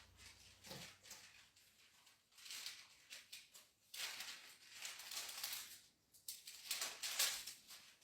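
Faint, irregular paper rustling in several clusters: Bible pages being leafed through to find a verse.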